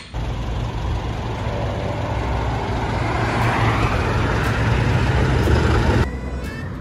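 Road traffic close by: a motor vehicle's engine rumble and tyre noise, growing louder over several seconds, then cut off sharply about six seconds in.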